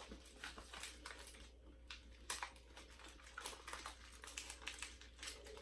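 Faint, irregular crinkling and small clicks of a chocolate bar's paper wrapper being handled and opened by hand.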